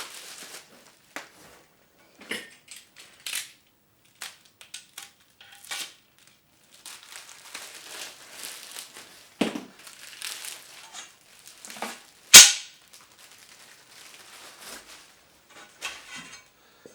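Display-case frame bars and their plastic packaging being handled: rustling and crinkling with scattered sharp clicks and knocks, and one loud sharp knock about twelve seconds in.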